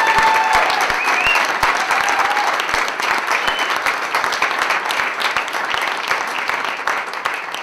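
Audience applauding steadily, fading slightly toward the end, with a few voices calling out over the clapping in the first couple of seconds.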